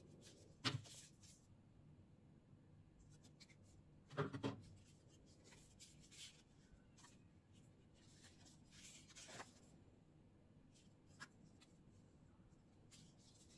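Faint rustling of paper leaflets and cards being handled and shuffled. A few soft rubs, the loudest about four seconds in, against near silence.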